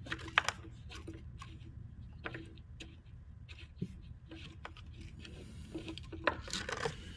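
Scattered light clicks and knocks of hands handling the generator's plastic and metal parts, the sharpest about half a second in, over a low steady hum.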